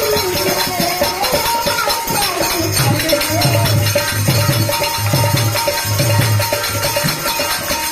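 Devotional bhajan music: a wavering melody over held tones, then about three seconds in a hand drum starts a steady low beat, with shaken percussion throughout.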